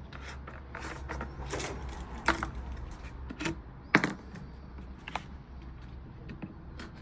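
A handful of sharp, irregularly spaced clicks and knocks of objects being handled, the loudest about four seconds in, over a low steady hum.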